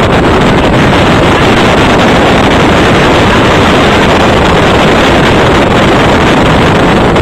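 Loud, steady rushing noise that overloads the microphone, with no speech heard through it.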